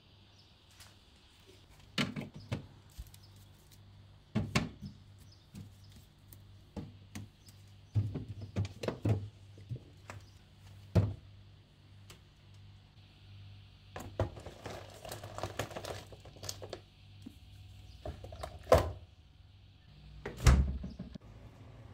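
Groceries being put away: cans, cartons and plastic tubs set down on a table and on fridge shelves, a string of separate clunks and knocks. A stretch of rustling comes about two thirds of the way in, and the heaviest thump comes near the end.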